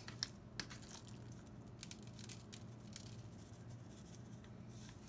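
Faint patting and rubbing as hands work a dry spice rub into a raw pork loin on a metal sheet pan, with scattered light ticks over a low steady hum.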